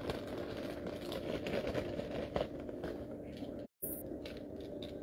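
Faint handling noises, a few light clicks and knocks, over a steady background hiss and low hum. The audio cuts out completely for a split second a little before four seconds in.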